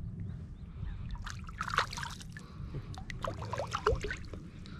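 Water splashing and dripping, a run of many short splashes and drips, as a fishing line with a small tilapia on it is hauled in out of the lake.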